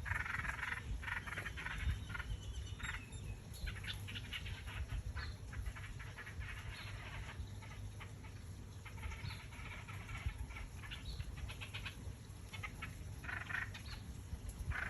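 Small bird chirping in short clusters of rapid, high chirps that come every couple of seconds.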